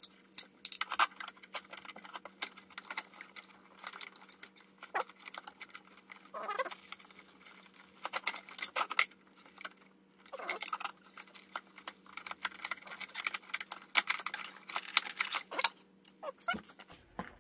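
Engine wiring harness handled with gloved hands, fed through the engine bay and laid on the engine. Plastic connectors and loom give irregular clicks, rattles and rustling, with a couple of short squeaks.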